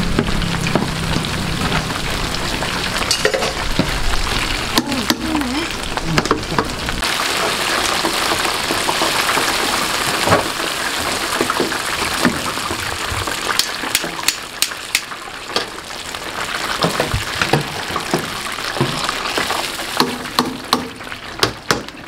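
Battered Korean fritters (twigim) frying in a large steel deep fryer of hot oil: a steady sizzle, with a wire skimmer stirring through the oil and clinking against the fryer's steel sides in many short clicks, most of them in the second half as the pieces are lifted out.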